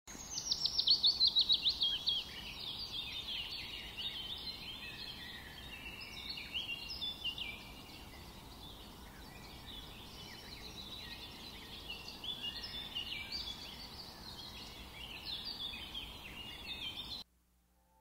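Small birds chirping and twittering in a busy, overlapping chorus of short high notes, over a faint steady background hiss. It opens with a fast run of notes falling in pitch and cuts off suddenly near the end.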